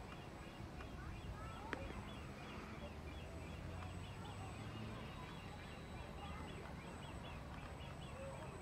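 Faint outdoor ambience with many small birds chirping in quick, continuous short calls, a low hum underneath, and a single sharp click about two seconds in.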